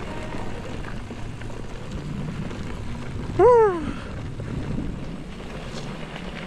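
Mountain bike rolling along a dirt trail, a steady rush of tyre and wind noise. About halfway through comes one short, loud pitched cry that rises and then falls in pitch.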